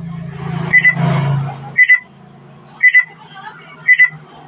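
Faulty Bluetooth speaker giving a short, high beep about once a second, four times: the repeated 'pic pic' beeping that is its fault. A low hum and hiss sound under the first two beeps and stop about two seconds in.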